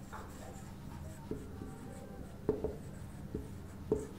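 Marker pen writing on a whiteboard: a handful of short squeaks and taps, one per stroke, as a word is written.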